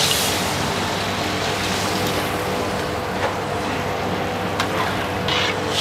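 Steady roar of a gas wok burner under a large steel wok. Water is poured into the simmering sauce at the start, and a steel ladle clicks against the wok a few times while stirring.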